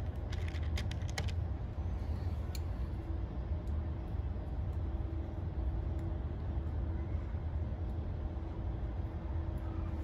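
A steady low rumble, with a quick run of small sharp clicks and ticks in the first second or so and one more a little later, as wires and hand tools are handled during rewiring of a condenser fan motor.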